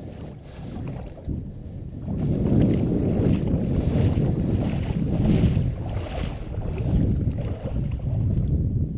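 Creek water splashing and sloshing around a steelhead held in the shallow current, with wind buffeting the action-camera microphone. The rumble gets louder about two seconds in.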